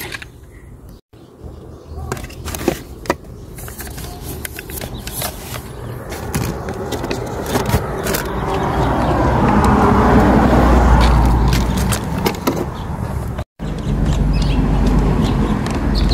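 Clicks, knocks and rustling from a toy-grade RC crawler truck and gear being handled and lifted out of a car's cargo area. A rushing, rumbling noise swells up about halfway through and fades again before a cut.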